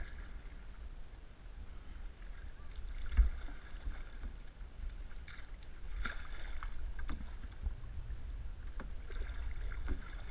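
Paddles dipping and pulling through lake water beside an aluminium canoe, with repeated splashing and a few sharp knocks, the loudest about three seconds in. A steady low rumble of wind on the microphone runs underneath.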